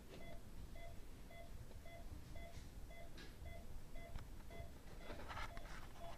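Steady electronic beeping from a patient monitor in the dental operatory: short, evenly spaced beeps about twice a second, with faint rustling between them.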